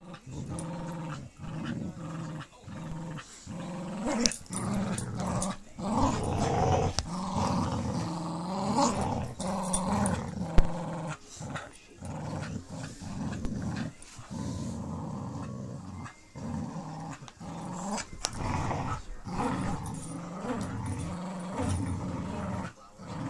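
Dogs play-growling during a game of tug-of-war with a toy: a string of low growls with short breaks between them. A sharp knock stands out about ten seconds in.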